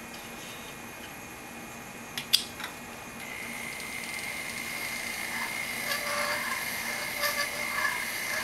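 A brief knock, then a pedal-controlled flex shaft rotary tool starts about three seconds in with a steady whine as its bur grinds out the inside of a wax ring, getting louder toward the end.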